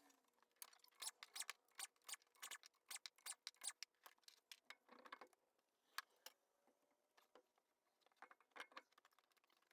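Faint, irregular light clicks and taps of hand work: a quick flurry for about three seconds, then only scattered clicks.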